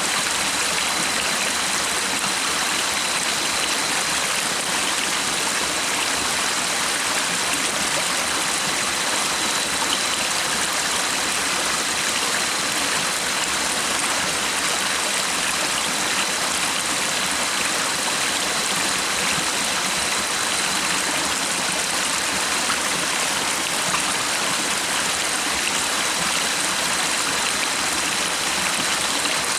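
A stream running, a steady, even rush of water with no let-up, with a faint thin high tone held beneath it.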